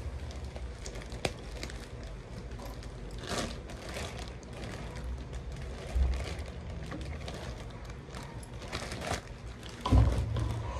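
Cooking and handling sounds around a non-stick pan on a hot plate: scattered clicks and knocks, with dull thumps about six seconds in and near the end, over a low steady hum.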